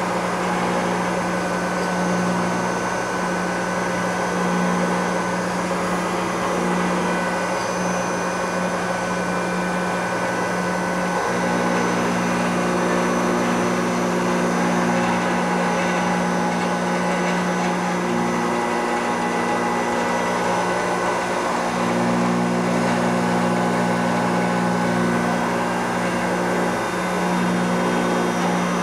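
Supermax YCM-40 CNC knee mill's spindle running as an end mill cuts an aluminium part: a steady machining drone with several held tones that shift a few times as the cut changes.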